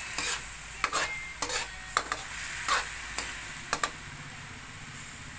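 Metal spatula scraping and stirring beef slices in sauce in a metal wok, about ten quick scrapes against the pan over a light sizzle, working in just-added sugar. The scraping stops about four seconds in, leaving the sizzle.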